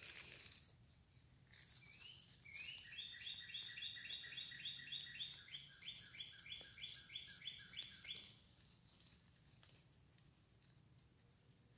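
A bird singing a fast run of evenly repeated high notes, about three a second, starting about two seconds in and stopping after about six seconds.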